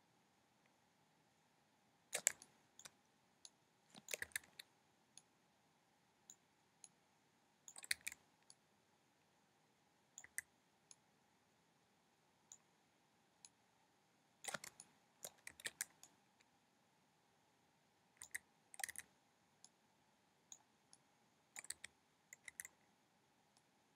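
Clicks from a computer keyboard and mouse, alone or in short clusters every few seconds, over a faint steady hum.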